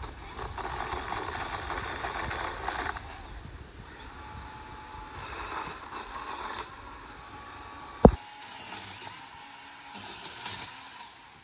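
Cordless DeWalt pole saw running in bursts, loudest for the first three seconds, with one sharp knock about eight seconds in.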